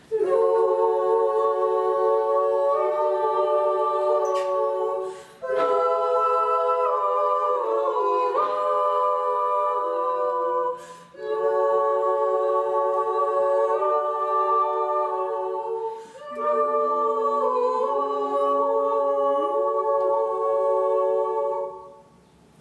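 Four women's voices in a cappella harmony, holding sustained chords that shift slowly in pitch. The chords come in four phrases of about five seconds each, with a brief breath between them.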